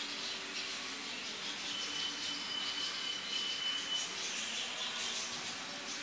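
Many caged small birds, budgerigars and canaries, chirping and twittering together in a dense steady chatter, with one thin high whistle held for about two seconds in the middle.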